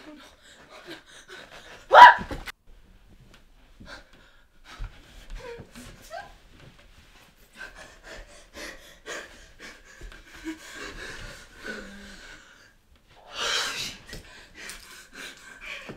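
A woman gasps sharply about two seconds in, then soft rustling of bedding and a towel, with a second loud, breathy gasp near the end.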